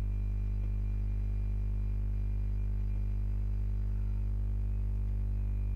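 Steady electrical mains hum, a low buzz with a ladder of overtones, picked up by the recording microphone.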